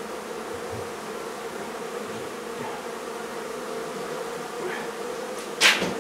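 Honey bees from an open hive buzzing in a steady, unbroken hum. A brief, sharp noise cuts across it near the end.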